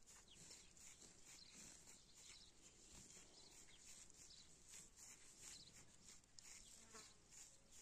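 Faint, high-pitched insect chirping, repeating about two to three times a second.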